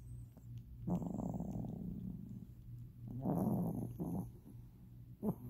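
A sleeping pet breathing noisily, snoring or purring with each breath: three breath sounds, the first long and fading, over a steady low hum.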